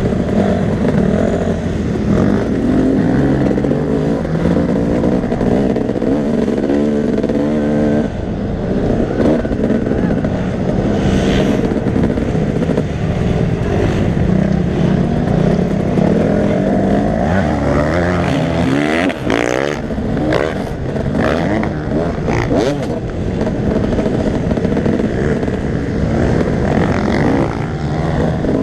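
Motocross bike engine heard from the rider's helmet camera, revving up and dropping back again and again as it works through the gears around the dirt track.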